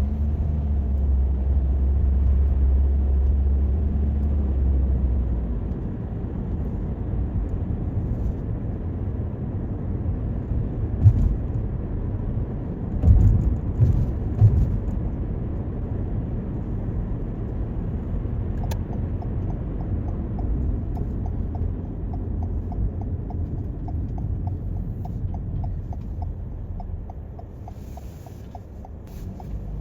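Road and engine rumble inside a Toyota Corolla's cabin while driving, heavier for the first few seconds, with a few low thumps near the middle. In the last third the turn-signal indicator ticks at an even pace.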